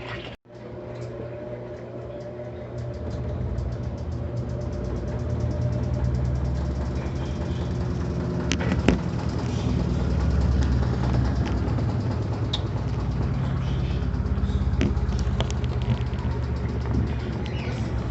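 Electrolux LAC12 washing machine running: a steady low motor hum that builds over the first several seconds, with a fast, faint ticking over it.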